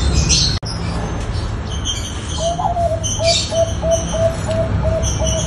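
Zebra dove (perkutut) cooing: after a longer opening note a couple of seconds in, a rapid string of short, even coo notes at about four a second. Small birds chirp in the background.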